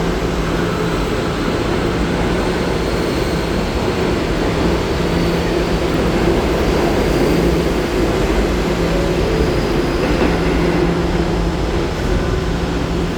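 Inside a moving R211A subway car: the steady rumble of wheels on the rails, with a constant low hum running under it.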